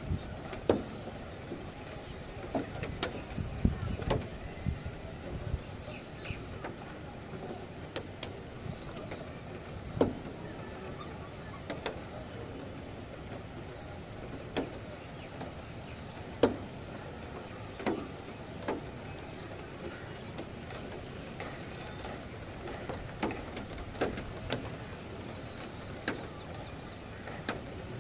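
Steady rain, with irregular sharp taps of drops striking a hard surface close by. A low rumble swells briefly a few seconds in.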